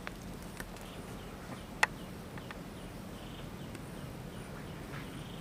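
Rural outdoor ambience: faint bird chirps over a steady low hum, with one sharp click about two seconds in and a few softer clicks.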